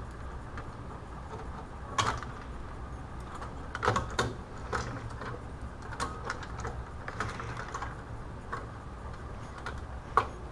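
Scattered light clicks and taps of a circuit board assembly being handled and seated into a plastic housing, a few seconds apart, over a faint steady low hum.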